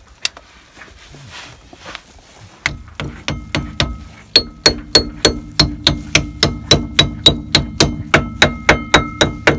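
Hammer tapping a new metal dust cap onto the rear wheel hub of a Peugeot 2008: a steady run of light strikes, about three a second, beginning about three seconds in. Each strike leaves a short metallic ring.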